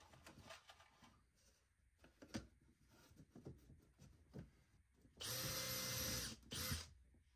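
A cordless drill runs for about a second, stops briefly, then runs again in a short burst, driving a screw into a ceiling panel. Before it come scattered light knocks as the panel is handled and pressed into place.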